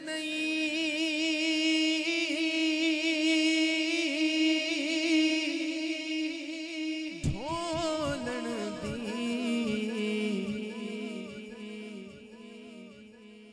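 Male naat reciter singing without instruments: one long high note held with vibrato, then about seven seconds in the voice drops lower into a wavering, ornamented line that fades near the end.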